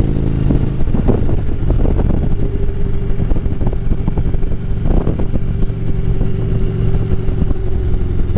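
Harley-Davidson V-twin motorcycle engine running at a steady pace while riding, heard from the rider's position with road and wind noise.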